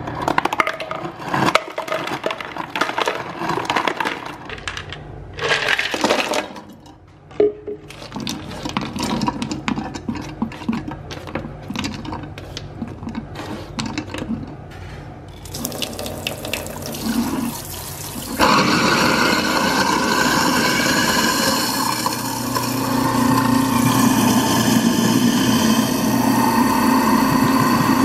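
Ice cubes clattering from a refrigerator's ice dispenser and being pushed into a sink drain. About 18 seconds in, the tap turns on and water rushes loudly and steadily into the stainless-steel sink and the garbage disposal drain.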